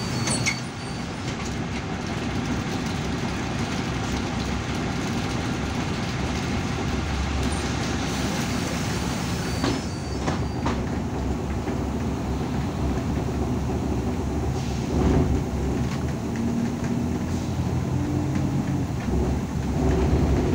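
Irisbus Citelis 12 m city bus standing at a stop, heard from inside the cabin: a steady engine rumble. It grows a little louder near the end as the bus pulls away.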